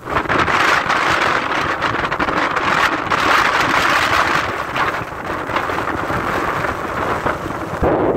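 Strong gusting wind of around 70 km/h, a loud, uneven rush that surges and buffets the microphone.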